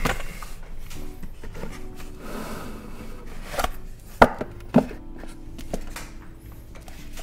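Boxes of silver bars being shifted around on a tabletop by hand: rustling handling noise and a few sharp knocks as they are set down, the loudest about four seconds in.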